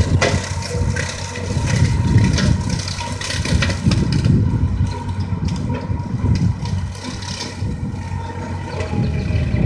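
Farm tractor engine running under load while its stalk chopper shreds dry standing cornstalks, a steady low rumble with scattered crackling.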